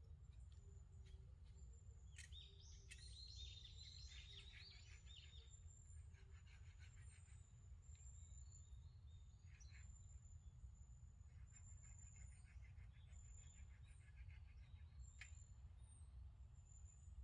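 Faint forest birdsong: repeated high, thin whistled notes, with two spells of fast chattering trills, a few seconds in and again past the middle, over a steady low rumble. A few sharp clicks.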